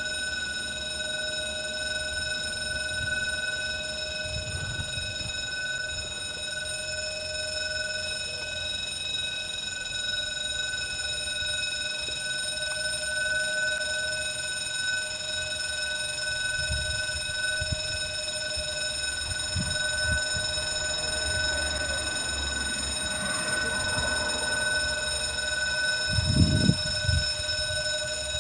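Trackside railway warning alarm ringing in one steady, unbroken tone: the signal that a train is due to pass. A few low thumps sound under it, the loudest near the end.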